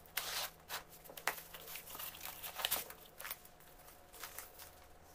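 Cardboard box flaps being opened and a foam packing pad lifted out: scattered rustles, scrapes and light knocks of handled cardboard and foam.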